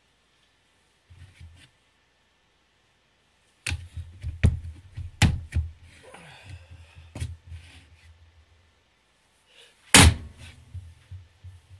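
Skallywag Tactical dagger blade striking and prying at a hard plastic Serpa-style pistol holster, giving a run of sharp knocks and clicks. It starts after a few quiet seconds, and the loudest strike comes near the end.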